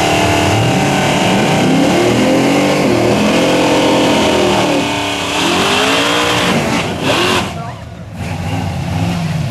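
Mustang drag cars' engines revving hard during burnouts, the pitch sweeping up and down again and again over the hiss of spinning tyres. Near the end the sound drops away briefly, then rises again.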